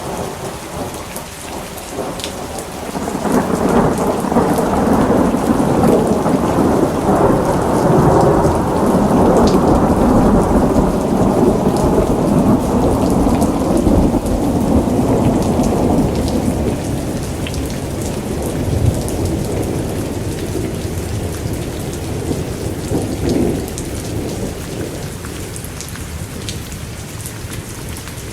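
Steady rain falling, with a long roll of thunder that builds about three seconds in, rumbles loudly for some ten seconds and fades away, then a smaller swell of rumble near the end.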